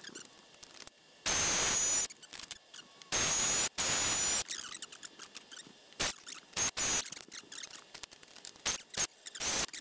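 Cordless drill boring through aluminium plate: two runs of about a second each with a high motor whine over a harsh grinding noise, then several short trigger blips and clicks in the second half.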